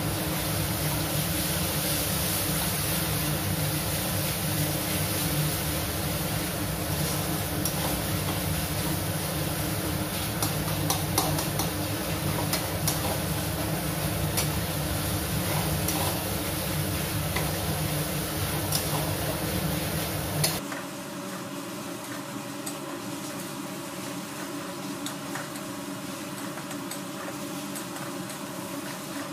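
Onion-tomato masala sizzling as it fries in a steel kadai on medium flame, stirred and scraped with a metal spatula that clicks against the pan now and then. About twenty seconds in, the overall sound drops suddenly and the stirring and frying go on more quietly.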